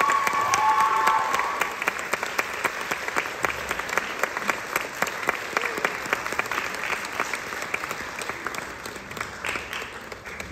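Audience applauding after a performance: dense steady clapping that thins and fades toward the end, with a few voices calling out over it near the start.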